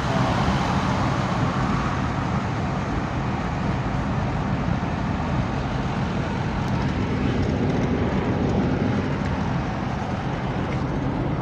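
Steady road-traffic noise: a continuous rumble of passing vehicles and tyres on the road, with no single event standing out.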